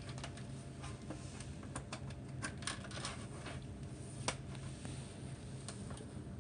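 Scattered light clicks and taps of cable connectors being plugged in and monitor parts being handled, over a faint steady low hum; the sharpest click comes about four seconds in.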